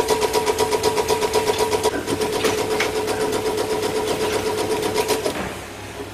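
Automatic stator coil-winding machine running as it winds copper wire onto motor stators: a steady mid-pitched whine over rapid, even clicking. The whine stops about five seconds in.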